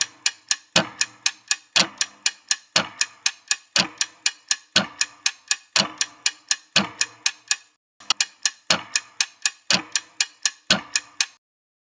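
Ticking clock sound effect used as a quiz countdown timer: about four sharp ticks a second with a stronger tick about once a second, a brief break about eight seconds in, then it cuts off suddenly near the end.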